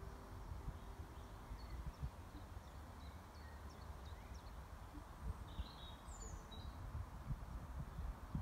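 Small birds chirping, faint and scattered, over a low rumble with irregular soft thuds.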